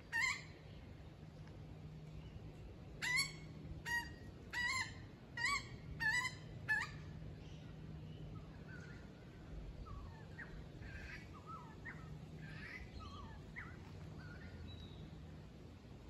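Little wattlebirds squawking: a harsh call at the start, then a run of about six loud, harsh squawks within the first seven seconds. After that, other birds keep up softer, fainter chirping song.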